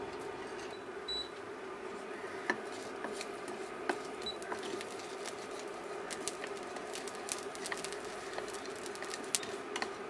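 Whole spices (cumin, black pepper, ajwain and cloves) dry-roasting in a frying pan on a low flame: scattered small irregular clicks and pops over a steady low hum.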